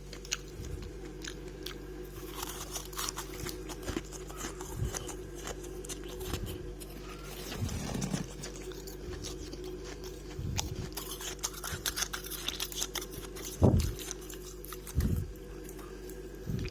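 Close-up crunching and chewing of freezer frost scraped from a fridge, a run of crisp crackling bites with a few heavier crunches near the end, over a steady low hum.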